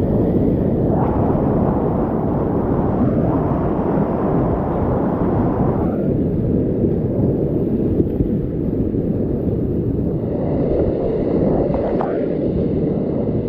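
Whitewater rapids rushing loud and close around a kayak, a steady, dull-sounding rush of churning water. About twelve seconds in, a splash of water hits the camera.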